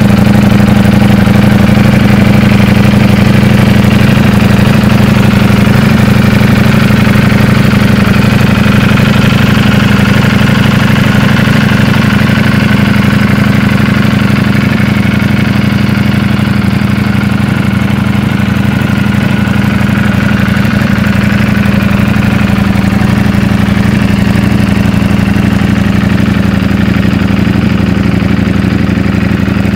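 Ducati Streetfighter V4S's 1103 cc V4 engine idling steadily, growing slightly quieter in the second half.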